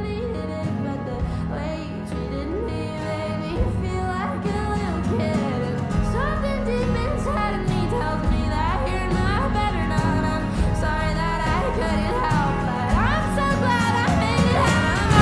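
Music: a pop song clip with a sung vocal melody over a steady bass line.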